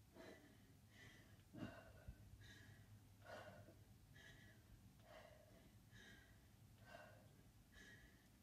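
Faint, regular heavy breathing of a woman under exertion, about one breath a second. There are a couple of soft knocks about one and a half to two seconds in.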